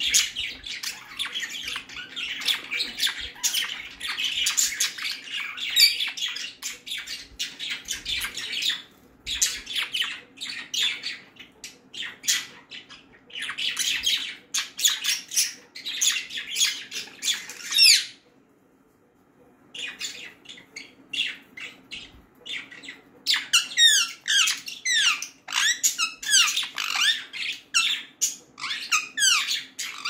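Budgerigar chatter: a busy warble of rapid short chirps, clicks and squawks. It breaks off for a couple of seconds a little past halfway, then resumes as a quick run of sweeping chirps.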